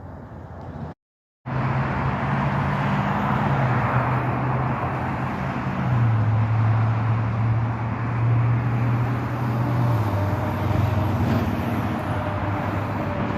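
Road vehicle noise: a motor vehicle's engine hum running close by over steady road noise, its pitch shifting down in steps a few times. The sound cuts out completely for a moment about a second in.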